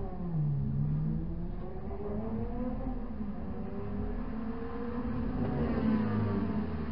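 Proton Saga race car's four-cylinder engine, heard from inside the cabin as the car moves at low speed. The engine note rises and falls several times with the throttle.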